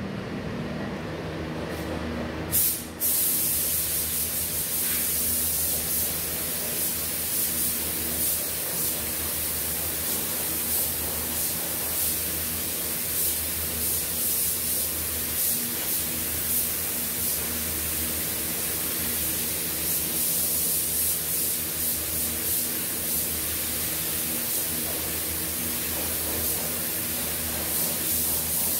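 Compressed-air gravity-feed spray gun spraying paint onto a car bumper. The steady hiss starts with a short pop about two and a half seconds in and swells slightly with each pass, over a steady low hum.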